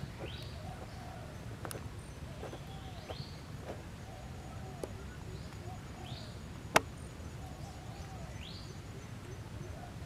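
Animal calls: short rising chirps repeating about every second and a half, with lower rising-and-falling calls between them, over a steady low rumble. A single sharp click about two-thirds of the way in is the loudest sound.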